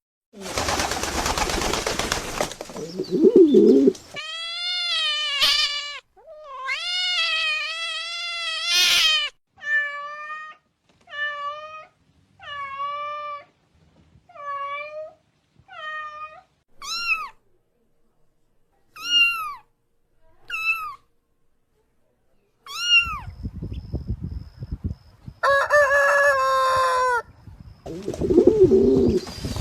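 A cat meowing over and over, about a dozen calls: two long wavering meows, then shorter ones, the later ones falling in pitch. Noisy stretches come at the start and end, and a longer, steadier animal call sounds near the end.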